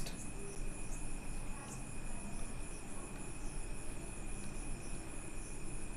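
Background noise between spoken sentences: a steady low hiss with a constant high-pitched whine.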